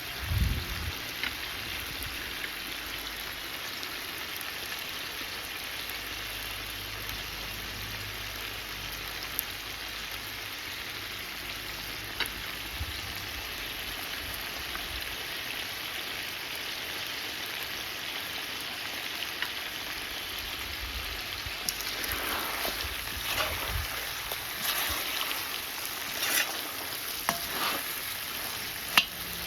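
Food sizzling and frying steadily in a cauldron over a fire. Several short clicks and scrapes come in the last several seconds.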